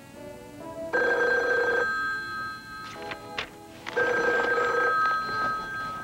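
Telephone bell ringing twice, each ring about a second long and starting about three seconds apart. Soft background music with a few sustained notes plays before and between the rings.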